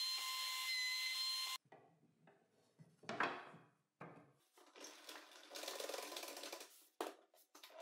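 A compact router running steadily with a high whine as its bit cuts a slot in an MDF insert, stopping abruptly about a second and a half in. Then faint handling sounds: the MDF insert being set into the table saw's throat opening, a soft tap, a hand sliding across it and a small click near the end.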